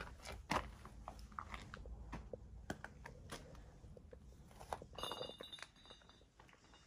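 Footsteps crunching on gravel, faint and irregular, with a short squeak about five seconds in.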